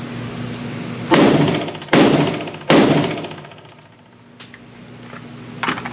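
Three rifle shots from a Springfield Hellion 5.56 bullpup rifle, fired about a second apart, each with a ringing tail that dies away. A fainter sharp crack follows near the end.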